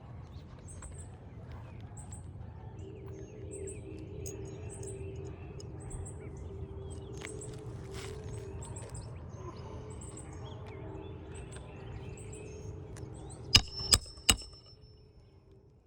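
Three sharp metallic hammer blows in quick succession near the end, with a short ring after each: a hammer striking a roof snake to drive a roofing nail under a shingle. Before them a bird chirps repeatedly over a steady low hum.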